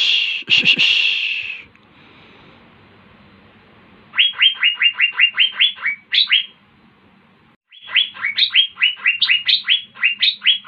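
Asian fairy-bluebird (cucak biru) singing. It opens with a harsh rasping call, then gives two long runs of quick rising whistled notes, about seven a second, starting about four seconds in and again about halfway through.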